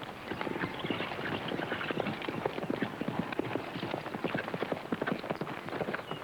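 Hoofbeats of several horses: a dense, irregular clatter of many hooves without pause.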